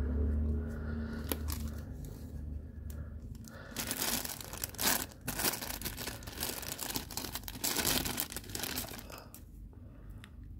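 Clear plastic bag crinkling and crackling as it is handled and pulled open, loudest in the middle few seconds.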